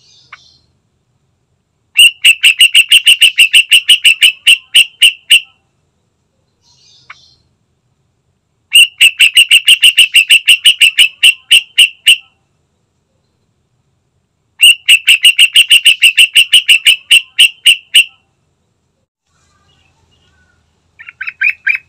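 Yellow-vented bulbul calling in three bouts of rapid, evenly repeated sharp notes, about five a second, each bout slowing at its end. A shorter, quieter burst of notes comes near the end.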